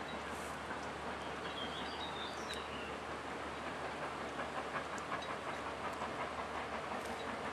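GWR Manor-class 4-6-0 No. 7800 'Torquay Manor' working a passenger train, heard across a river: a steady rumble of its exhaust and the coaches running along the track.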